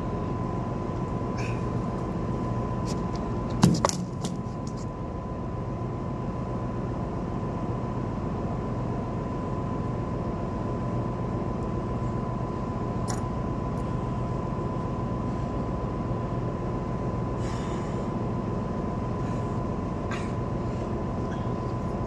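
Steady drone of a fishing boat's onboard machinery: a low hum with a constant high whine over it. A single loud knock comes about four seconds in.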